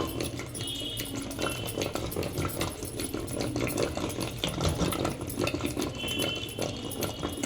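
Cooked red and toor dal being mashed smooth: a continuous busy rattling and scraping.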